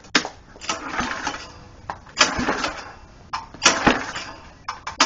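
Recoil starter cord of a 7 hp single-cylinder overhead-valve engine pulled several times, about one and a half seconds apart, with the choke on. Each pull turns the engine over without it firing.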